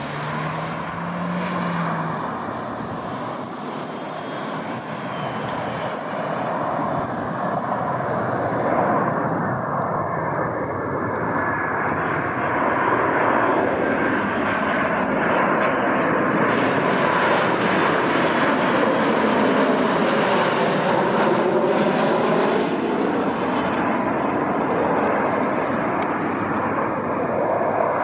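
Airliner's engines growing louder as the plane passes close by, a steady rushing whose tone sweeps up and down about two-thirds of the way through.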